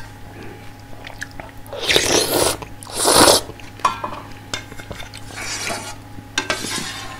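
A person blowing hard on a ladleful of hot soft-tofu ramen to cool it: two loud breathy rushes about two and three seconds in, then two softer ones near the end. Small mouth and utensil clicks come in between.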